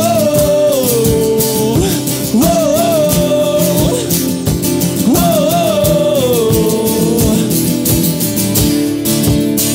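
Two acoustic guitars strummed in a steady rhythm under a wordless sung vocal line that swells and falls away in three long phrases.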